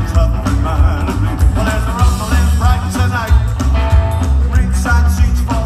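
Live rockabilly band playing: hollow-body electric guitar, upright bass and a small standing drum kit, with a pulsing bass beat and a lead vocal sung over it.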